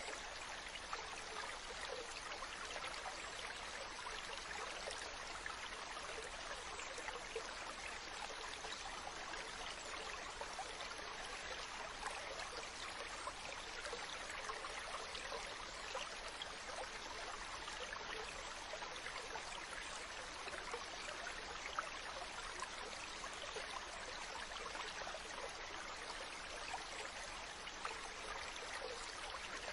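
Running water flowing steadily, an even rushing wash flecked with small trickling splashes, with no change throughout.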